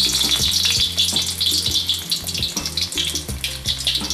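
Tempura-battered prawn deep-frying in hot oil in a wok, sizzling with a dense, steady crackle just after going into the oil.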